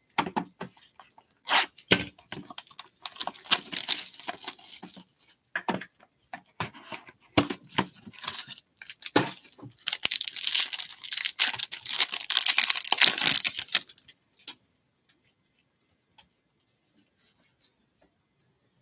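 Gloved hands handling and opening a cardboard hobby box, scattered clicks and rustles, then tearing open the crinkly foil wrapper of a Topps Inception card pack. The tearing is the loudest part, a dense rip lasting about four seconds past the middle.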